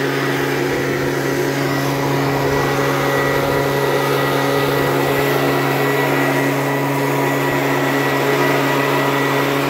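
Stihl handheld petrol leaf blower running steadily at a constant high speed, its engine tone and rushing air blast steady as it blows fallen leaves off the soil between the saplings.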